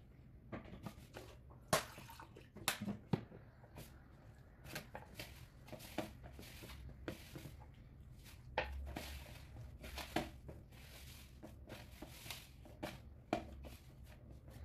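Hands rubbing, squeezing and pressing crumbly pastry dough in a woven wooden bowl: soft, irregular rustling and squishing with light taps. The dough is being brought together into a ball.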